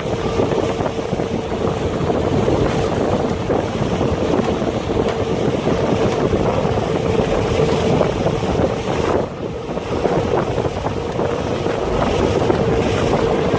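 Parasail tow boat under way: its engine runs steadily with a constant hum, and wind buffets the microphone. The sound dips briefly about nine seconds in.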